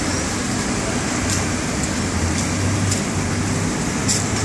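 A fire engine's engine running steadily with a low hum, and a few faint clicks over it.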